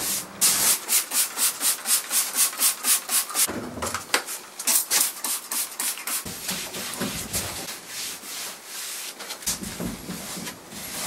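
A cloth rubbing back and forth over a stripped wooden surface in quick strokes, about four a second at first, then more slowly and irregularly, wiping off paint-stripper residue.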